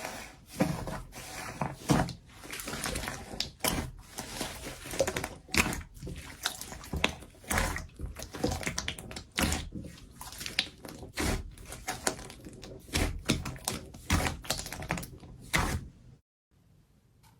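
Slime being pressed and kneaded by hand, giving a fast, irregular run of sticky clicks and pops that stops abruptly about a second before the end.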